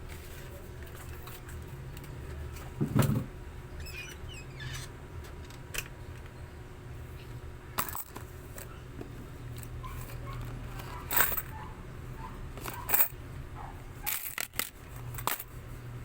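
Scattered clicks, knocks and clinks of small objects being handled, over a steady low hum. The loudest knocks come about three seconds in, about eleven seconds in and about thirteen seconds in.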